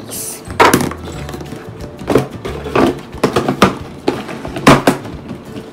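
Background music with a beat and sharp percussive hits.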